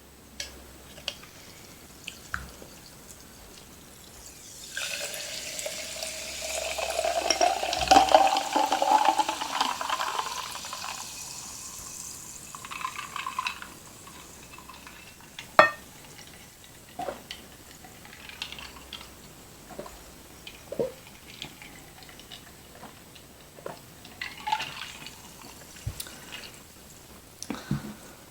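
Liquid poured into a glass for about seven seconds, the pitch rising as it fills, followed by close-miked eating sounds: scattered sharp clicks and short wet smacks of chewing.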